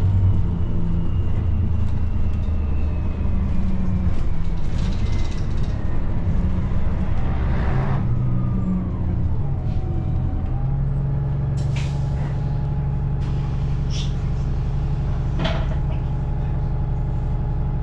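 Inside a bus: the engine and drivetrain whine falls slowly as the bus slows down. About eight seconds in, a hiss cuts off sharply, then the engine hums steadily at rest, with a few sharp clicks and knocks.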